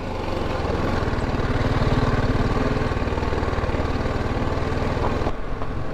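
BMW G310GS single-cylinder engine running at low speed while riding slowly on a gravel mountain track, a steady pulsing note. The low engine note dips about five seconds in, as if the throttle is eased off, then picks up again.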